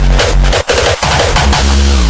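Gabber/hardcore electronic music at high volume: heavy distorted kick drums pound in a steady beat. About a second in, the kicks give way to a held low bass tone.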